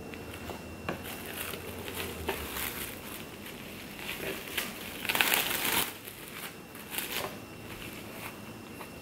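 Plastic cling film crinkling and rustling as a sushi roll wrapped in nori is rolled and pressed by hand, loudest about five seconds in.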